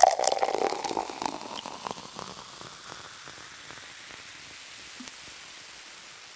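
Thick fruit juice pouring from a pitcher into a glass bottle: a splashy trickle with small pattering clicks. It is loudest at first and fades within about two seconds to a faint steady hiss.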